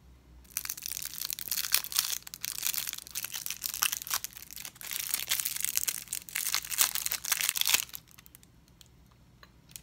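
Candy wrapper crinkling and tearing as it is opened, a dense crackling that lasts about seven seconds and stops near the end.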